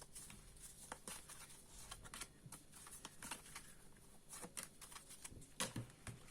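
Faint, scattered clicks and soft rustles of fortune-telling cards being handled and laid out.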